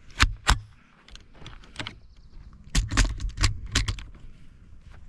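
Ruger 10/22 Takedown semi-automatic .22 rimfire rifle firing in quick succession: two sharp cracks within the first half second, a lighter one near two seconds in, then a fast string of about five shots around three to four seconds in.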